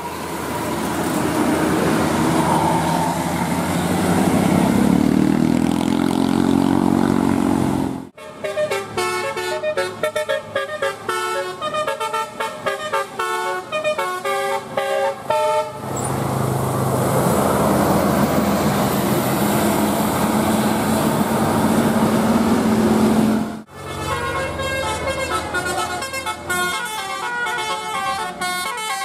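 Telolet horns on big buses, multi-tone air horns playing quick stepped tunes, heard in two passages: from about a quarter of the way in to about halfway, and again over the last few seconds. Between them, and at the start, a bus drives by in heavy road noise, its engine note rising. The sound switches abruptly from one passage to the next.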